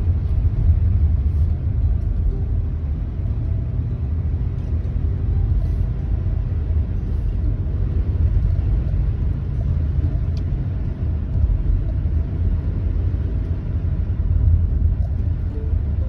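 Steady low rumble of a car driving on wet, slushy pavement, heard from inside the cabin: tyre and road noise with the engine underneath.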